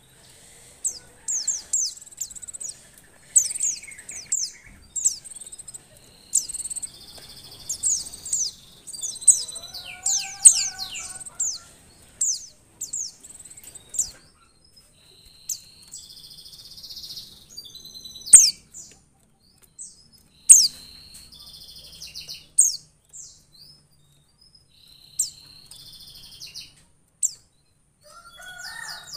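Female white-eye (pleci) calling: clusters of short, high, downslurred chirps with uneven gaps between them. Its most insistent run comes in the first half. This is the call of a female in breeding condition, used to get male pleci singing.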